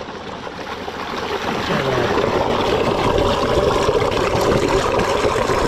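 Stick (arc) welding on a steel gate frame: the electrode's arc crackles and sizzles steadily, building up over the first two seconds and then holding even.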